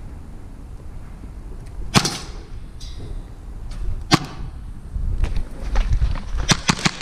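Airsoft pistol shots: two sharp cracks about two seconds apart, then scattered clicks and a quick run of sharp cracks near the end.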